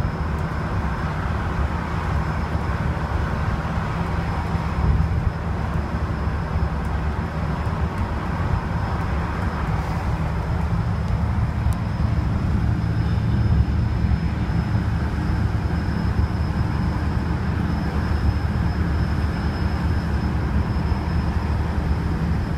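Wright StreetDeck double-decker bus cruising at motorway speed, heard from inside on the upper deck: a steady low engine drone and road rumble, with a faint steady high whine above it.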